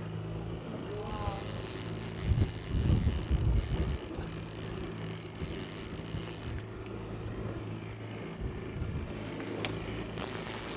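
Fishing reel clicking and ratcheting as a hooked chinook salmon is reeled in, over the steady low hum of the boat's motor. A louder rough low rumble comes in about two to four seconds in.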